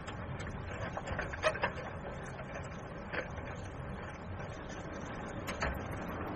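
A low, steady mechanical rumble with a few scattered clicks and rattles over it.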